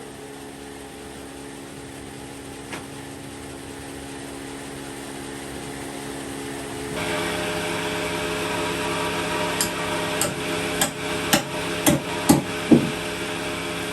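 Steady drone of workshop machinery with several steady tones, which grows louder about halfway through. Near the end come seven sharp knocks, about two a second.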